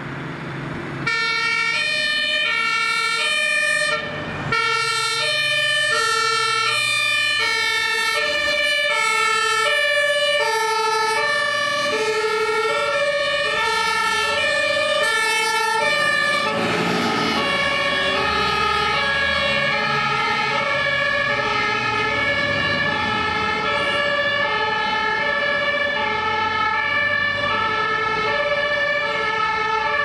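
German fire engines' two-tone sirens (Martinshorn) sounding on an emergency run, alternating steadily between a high and a low tone from about a second in. From about halfway a second two-tone horn overlaps out of step with the first, with a truck engine rumbling as a turntable ladder truck passes.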